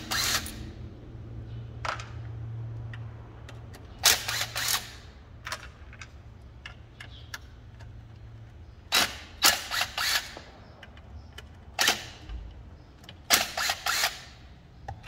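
Cordless impact driver with a T30 Torx bit hammering screws out of the metal end plate of a Ford C-Max lithium battery module: four short bursts of rapid impacts, about four seconds apart, over a low steady hum.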